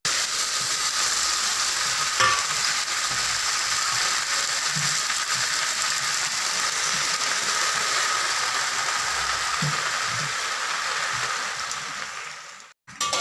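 Water spinach stir-frying in hot oil with shallots and garlic: a steady sizzle that cuts off suddenly shortly before the end.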